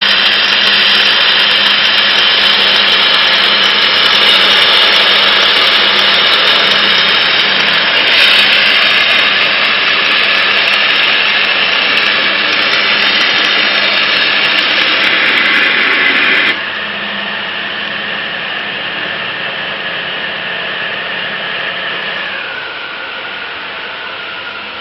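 CNC waterjet cutting 10 mm copper plate: a loud, steady hiss from the abrasive water stream. It drops abruptly in level about two-thirds of the way through and steps down a little again near the end.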